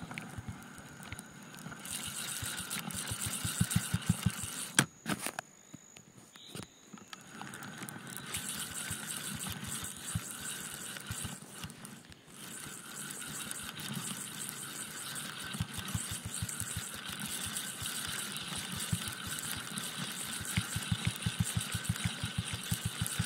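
Large carp spinning reel being wound in against a hooked fish: the gears whir with a fast, regular clicking. It breaks off briefly about five seconds in, with a couple of sharp knocks, then carries on.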